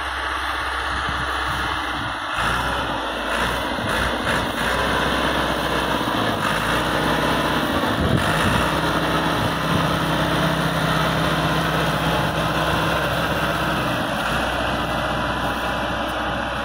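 Massey Ferguson 385 tractor's diesel engine running steadily while it pulls a disc harrow through dry soil.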